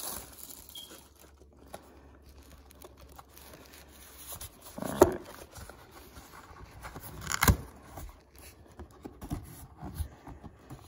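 Cardboard trading-card hobby box being handled and opened by hand: faint rubbing and scraping with two sharp knocks, about five and seven and a half seconds in, and a few lighter clicks near the end.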